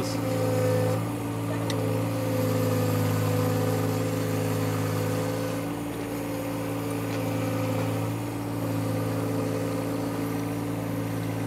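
John Deere compact tractor's diesel engine running at a steady speed while working the front loader.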